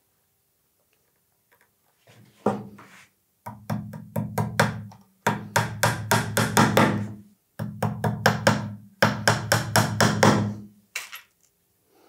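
Small hammer driving brass upholstery nails through leather into a wooden bellows board. The light taps come in several quick runs of about four or five a second, with short pauses between the runs.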